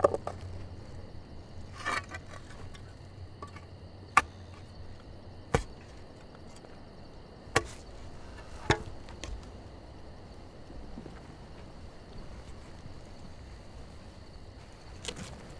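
A shovel digging into forest soil: sharp strikes every second or two, then a long pause before one more near the end. A faint steady chirring of crickets runs underneath.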